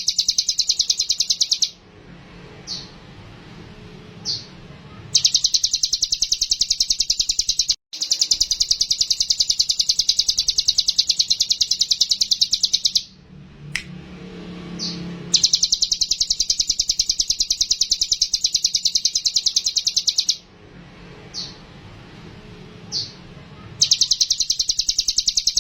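Ciblek gunung singing a rapid, high trill in long runs of several seconds. Short pauses between the runs hold a few single high notes.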